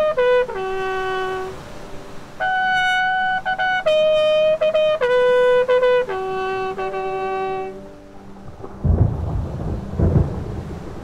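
A bugle call of several held notes on a few stepped pitches, sounded as a salute to the flag. It ends about three-quarters of the way through and is followed by two low rumbles of thunder.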